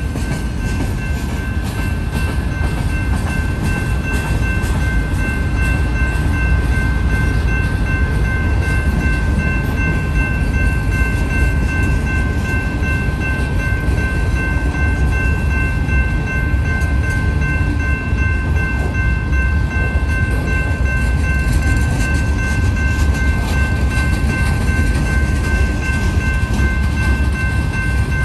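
Freight cars of a slow-moving Norfolk Southern train rolling past at a grade crossing: a steady, heavy low rumble of wheels on rail, with steady high-pitched tones held over it throughout.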